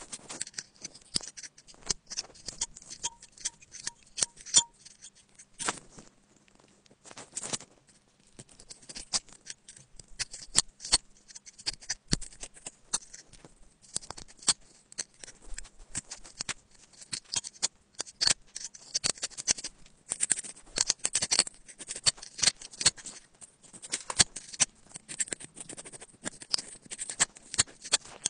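Metal pick scraping and clicking inside a phone's USB-C charging port, close up: a run of irregular sharp scratches and ticks as packed lint is dug out of the port.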